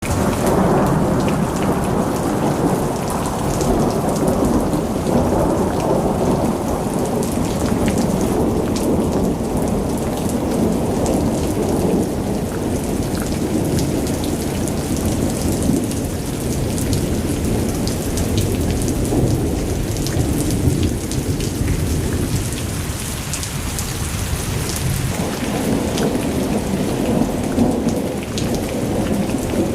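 Heavy rain pouring down in the first downpour of the season, a dense steady rush with a deep low rumble under it and scattered sharp drop ticks on top, easing a little for a few seconds past the middle.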